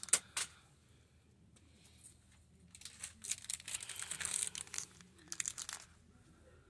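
Clear plastic packaging of craft stickers crinkling as it is handled: a few sharp rustles at the start, a longer stretch of crinkling about three seconds in, and a short flurry near the end.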